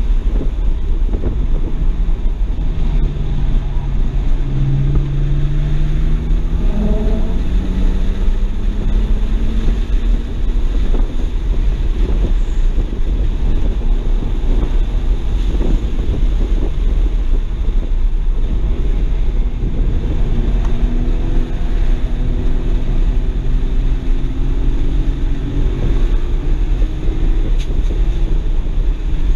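BMW 335i's N54 twin-turbo inline-six heard from inside the cabin under hard track driving, its revs climbing twice, a few seconds in and again past the middle, over a constant heavy rumble of wind and road noise.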